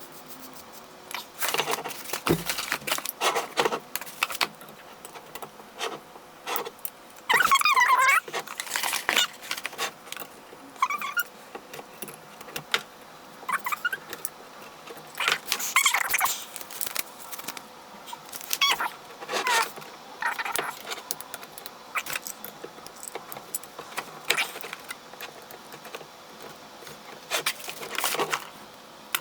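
Irregular clinks, rattles and scrapes of small metal parts being handled and screwed together while a microphone kit is assembled, with a few short squeaks.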